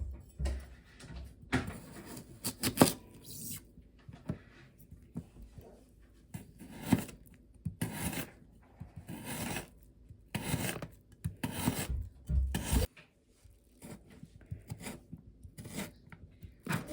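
Irregular rasping and rubbing strokes, one after another with short pauses between.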